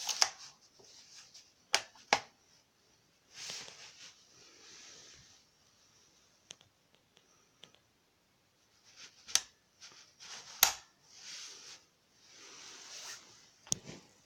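Handling sounds in a small room: a few sharp clicks, a close pair about two seconds in and others spread through, with soft rustling and sliding noises in between.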